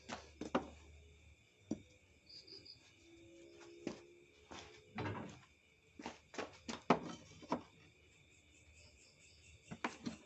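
Scattered short knocks and clicks, a dozen or so at irregular times, over a steady high cricket trill.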